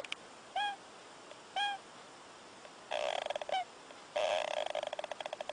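A small animal snoring in a high pitch: buzzing snores made of rapid pulses, one about half a second long near the middle and a longer one near the end, with short squeaky whistles between them, two in the first two seconds and one just after the first snore.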